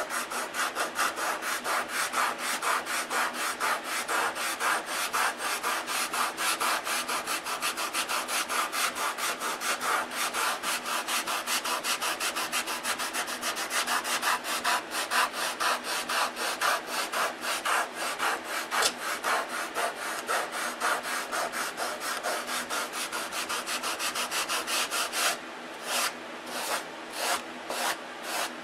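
Sandpaper hand-sanding a balsa-wood block wingtip with rapid back-and-forth rasping strokes, which slow near the end to separate strokes about three a second. The balsa tip is being sanded thin, and this can be heard in the sanding.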